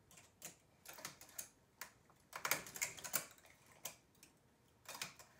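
Multi-prong transfer tools clicking and tapping against the metal latch needles of a flat-bed knitting machine as groups of stitches are lifted off to be crossed for a cable. Irregular light clicks, bunched in quick runs at times.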